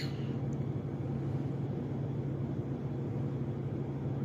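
Steady low hum with a constant pitch and a faint hiss over it, unchanging throughout.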